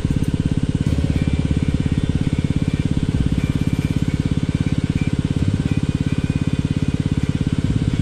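Irrigation water pump running steadily, a low, fast, even throb.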